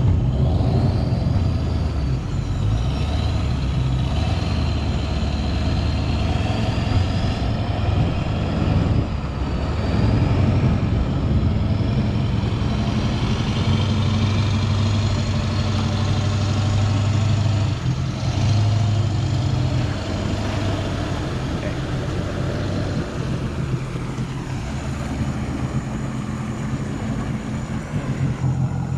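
Jet ski engine running on the water, its speed rising and easing, with a high whine that glides up and down over the low engine hum.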